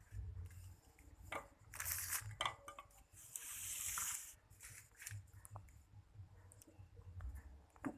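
Chocolate-milk ice-pop mixture poured into small plastic bags through a banana-leaf funnel: a short rush of pouring about two seconds in and a longer hissing pour around four seconds, among small handling clicks.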